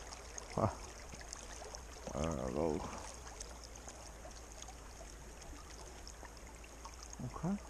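Creek water flowing in a steady, soft rush. Brief wordless voice sounds break in, the longest about two seconds in.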